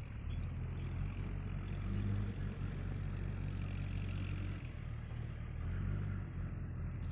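An engine running steadily, a deep low rumble that swells slightly about two seconds in and again near six seconds.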